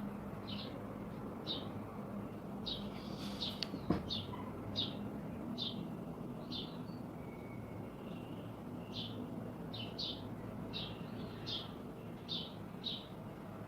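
A small bird chirping: repeated short high chirps at an uneven pace, about one or two a second, over a faint steady low hum. There is a single sharp click about four seconds in.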